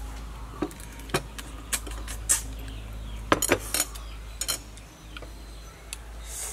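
Eating sounds: scattered sharp clicks and clinks of chopsticks and a spoon against a plate and a glass bowl, about a dozen, bunched most closely a little past the middle.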